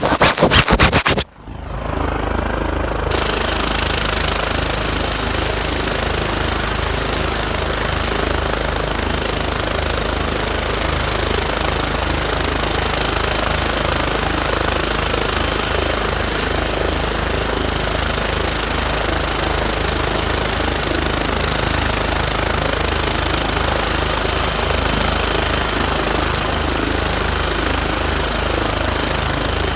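Medical helicopter's rotor and turbine running steadily, with a fast, even low thudding from the blades. A brief loud crackle and dropout about a second in.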